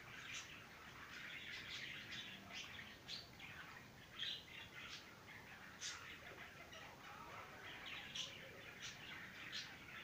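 Budgerigars chattering, many short chirps overlapping in a continuous warble, with a few sharper, louder chirps standing out.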